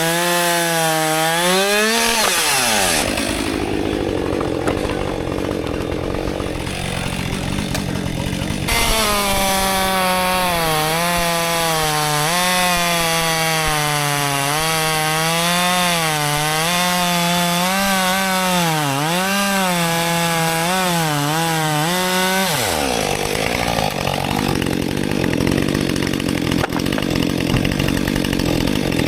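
Husqvarna 564 XP two-stroke chainsaw cutting through frozen red oak at full throttle, its engine pitch wavering up and down as it works in the cut. About two seconds in and again near the end, the pitch slides down sharply and the sound turns rougher.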